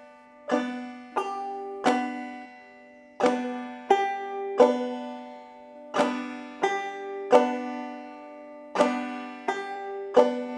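Five-string banjo played clawhammer style, slowly repeating the basic 'one, two-and' lick: three plucked, ringing strokes per group, the last on the 'and' made by the thumb on the fifth string. The group comes round four times.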